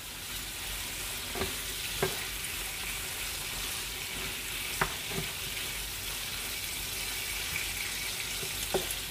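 Chicken pieces sizzling steadily in hot oil in a frying pan, with a few light knocks as a wooden spatula turns them. The sizzle is the sign that water is still cooking out of the chicken.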